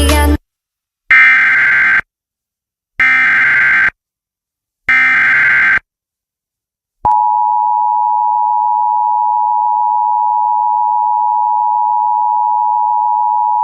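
Emergency Alert System activation for a flash flood warning: three bursts of SAME header data, each about a second long with a second of silence between. About seven seconds in, the steady two-tone EAS attention signal comes on and holds.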